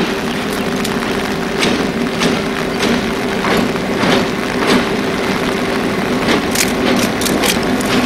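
Two diesel locomotives hauling a passenger train across a steel girder bridge: a steady engine drone with a held tone, and sharp clicks of the wheels over the rail joints about every half second.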